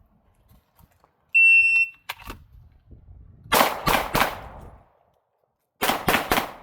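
A shot timer's steady electronic start beep, then a handgun fired from the draw: three quick shots, a pause of about a second and a half while the shooter moves to kneeling, then three more quick shots.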